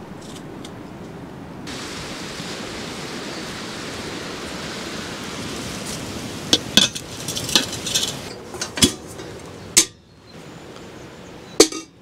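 Metal cookware clinking and knocking, a run of sharp metallic clinks in the second half, over a steady hiss that turns brighter about two seconds in.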